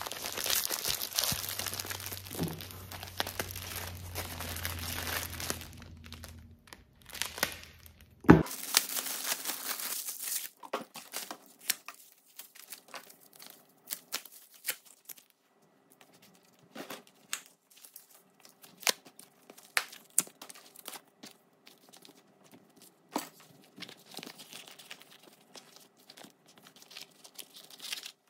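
Clear plastic packaging crinkling and tearing as a wallet is unwrapped, dense for the first eight seconds and then breaking off. After that come scattered light clicks and rustles of paper wrapping and the wallet being handled, over a faint steady hum.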